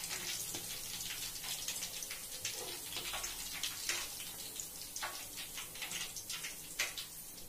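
Hot oil sizzling and crackling around marinated chicken pieces deep-frying in a steel kadai, while a perforated steel skimmer lifts the fried pieces out of the oil. Frequent sharp pops over a steady hiss that eases off a little toward the end.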